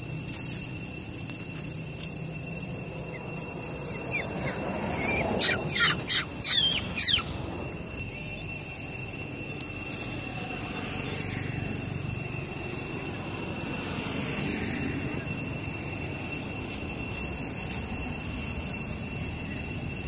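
A young long-tailed macaque squealing: a quick run of about five loud, shrill squeals, each falling sharply in pitch, about five seconds in. Steady high-pitched tones hum underneath throughout.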